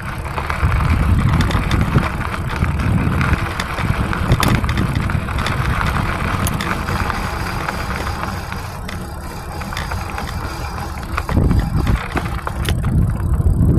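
E-bike rolling over gravel and rough pavement: steady rushing ride noise with scattered small knocks and rattles, growing louder near the end.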